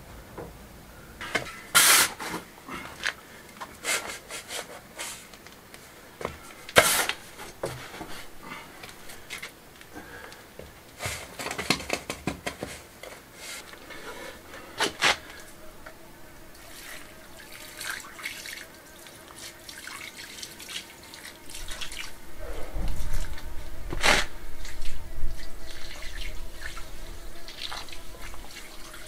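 Sharp scrapes and knocks of a trowel working mortar into the joints between stone slabs. Later, a watering can pours water over the freshly pointed joints to water the mortar in, louder in the last quarter.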